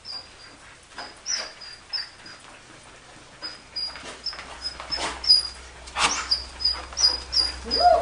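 Dog whining in a long run of short, high-pitched squeaks, several a second, while heeling, with a few sharp knocks in between.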